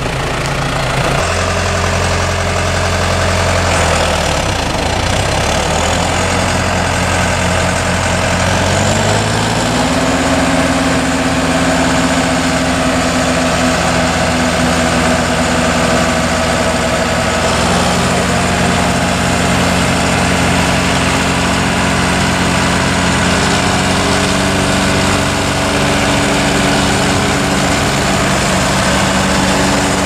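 John Deere 6420 tractor's diesel engine running steadily while pulling a discbine mower through standing hay. Its engine speed rises about nine seconds in, then holds.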